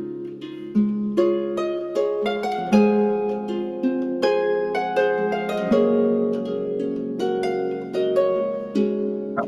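Harp being played: a flowing run of plucked notes, a few each second, each string ringing on beneath the next.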